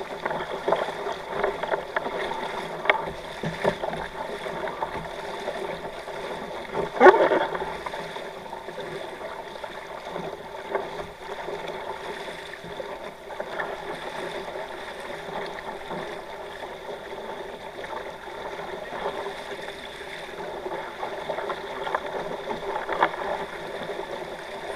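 Water rushing and splashing along the hulls of a sailing kayak catamaran under way, with one sharp, loud slap about seven seconds in.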